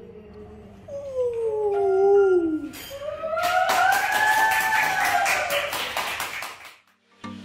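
A pitched voice sliding down in pitch about a second in, then a longer slide that rises and falls over about three seconds, with a rough hiss and rapid clicks under it. It breaks off into a brief gap near the end.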